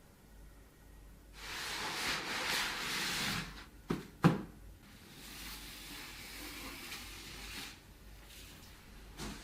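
Handling noises: a rustling, sliding sound for about two seconds, then two sharp clicks about half a second apart, then a quieter rustle and one more click near the end.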